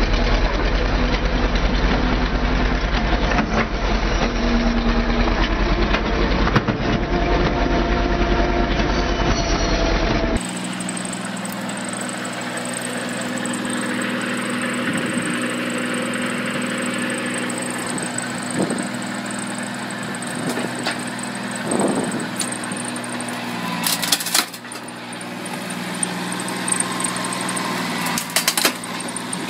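Firewood-processing machinery running steadily on an engine. The sound changes abruptly about ten seconds in to a different steady engine. A few sharp knocks come near the end.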